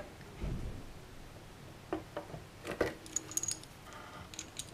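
Handling noise of metal tools on a steel ski binding jig: a soft thump about half a second in, then a few light metallic clicks and clinks, one with a brief high ring.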